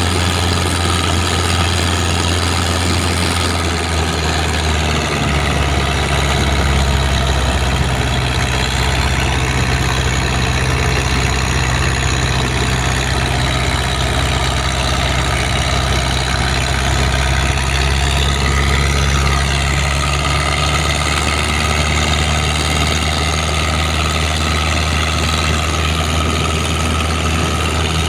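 Mitsubishi 4D31 four-cylinder diesel engine powering a boat, running steadily. Its note shifts slightly about four seconds in and again about twenty seconds in.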